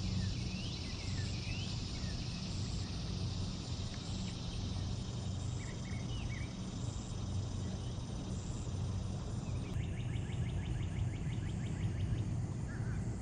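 Outdoor ambience: a steady low rumble with a few short, rising bird chirps. A fast ticking trill starts about ten seconds in.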